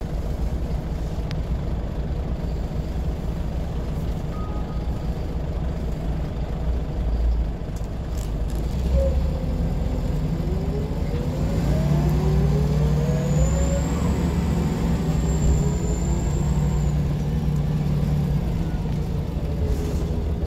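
Scania L94 bus heard from inside the passenger saloon on the move: a steady low engine drone, with the ZF automatic gearbox whining in rising tones as the bus accelerates through the gears in the middle of the stretch, and a thin high whistle over it for a few seconds.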